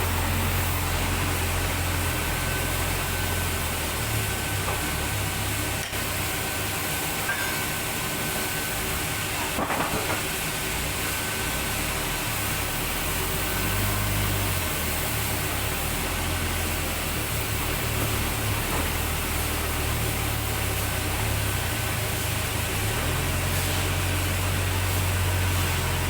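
Sawmill machinery running steadily: a low, wavering drone under a constant hiss.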